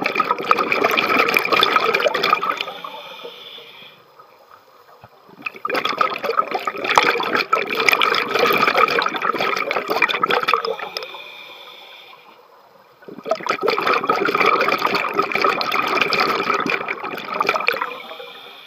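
Scuba regulator exhaust bubbles heard underwater: three long exhalations, each a loud gurgling rush of bubbles lasting several seconds, with quieter pauses between them.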